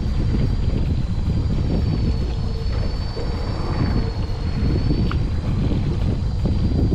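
A small fishing boat's engine running with a steady low rumble, wind buffeting the microphone, and a thin high whine held throughout.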